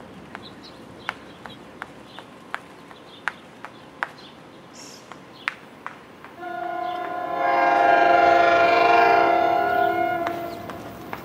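NJ Transit train sounding its horn on approach to the station: one long blast of a multi-note chord lasting about four seconds, starting about six seconds in, then fading. Before it, scattered sharp clicks.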